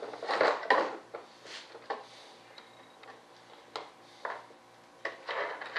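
Small metal landing-gear parts clinking and rattling as they are handled and fitted by hand. There is a flurry of clatter at the start and again near the end, with a few single clicks between.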